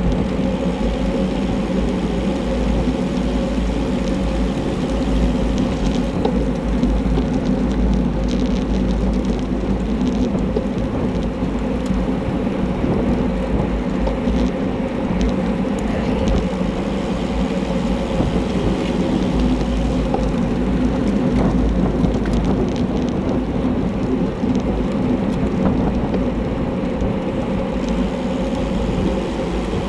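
Steady wind rushing and rumbling over a handlebar-mounted camera's microphone on a bicycle ridden at race speed, mixed with tyre and road noise.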